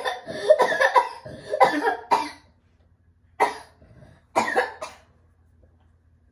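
A person coughing in short bursts, after a few seconds of voice.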